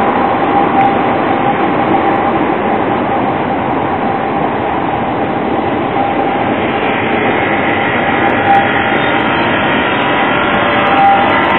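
CAF Urbos 3 low-floor trams running slowly through a curve on street track: a steady rumble of steel wheels on grooved rail with a thin steady tone. From about seven seconds in, higher whining tones join as a second tram comes up close.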